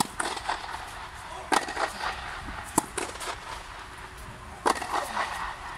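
Tennis rally: a ball struck back and forth by rackets, about four sharp hits with fainter bounces and steps on clay between. The nearer player hits one-handed backhands with a Wilson Blade 102.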